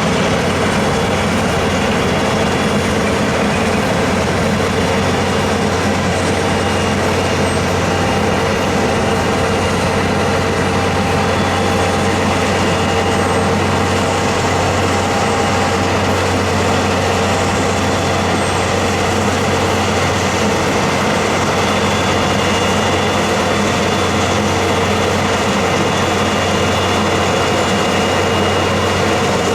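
Heavy snow-clearing vehicle's engine running steadily, a constant low hum with an even mechanical noise over it.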